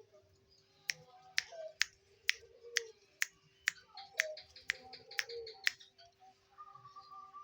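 A regular series of about eleven sharp clicks, roughly two a second, stopping a little before six seconds in, with soft low gliding notes between them. A faint steady tone comes in near the end.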